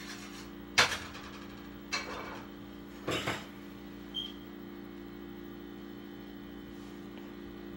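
A spatula and glass mixing bowl knocking against a skillet as beaten eggs are scraped into the pan: one sharp knock about a second in, then softer clatters around two and three seconds in. A steady electrical hum runs underneath.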